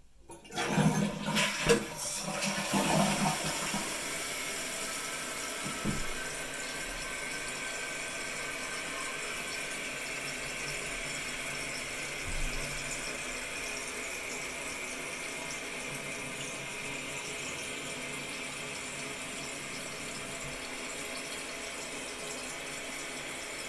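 Jacuzzi Lyndsay toilet flushing: a loud rush of water with a couple of knocks in the first few seconds. Then the open tank refills through its fill valve with a steady hiss of running water.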